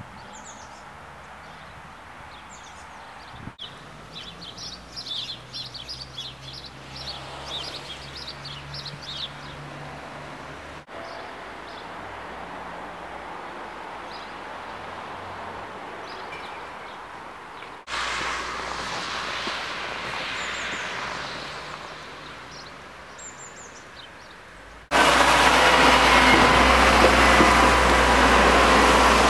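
Outdoor winter village ambience in several short takes. Small birds chirp now and then over a faint steady hum of distant traffic. Near the end a much louder steady rushing noise, like passing road traffic, cuts in and takes over.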